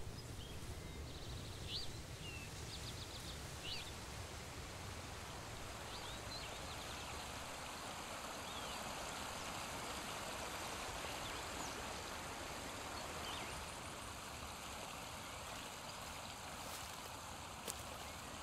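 Small rocky forest stream running, a steady even rush of water, with a few short bird chirps in the first several seconds.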